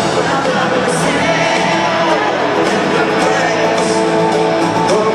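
Live country band and lead singer playing loudly through the concert PA, heard from among the crowd: guitars and a sung melody, steady with no break.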